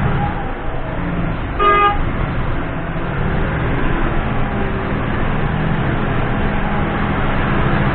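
Loaded concrete mixer truck's diesel engine running steadily while climbing a steep grade, with one short vehicle horn honk about one and a half seconds in.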